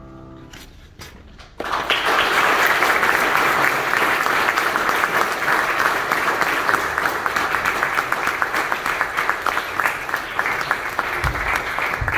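The last piano chord fades away, then about a second and a half in an audience breaks into loud, sustained applause.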